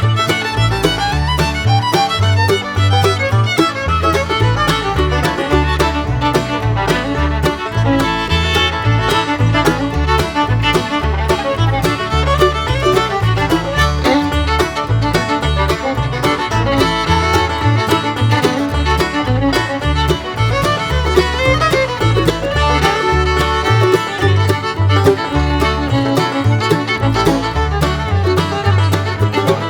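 Background music: an upbeat fiddle-and-banjo tune with a steady bass beat.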